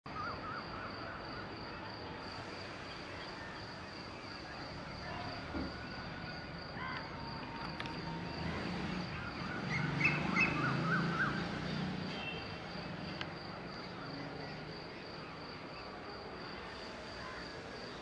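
Outdoor morning bird chorus: several birds chirping and calling, busiest about ten seconds in, over a steady high pulsing trill and a low rumble that swells in the middle.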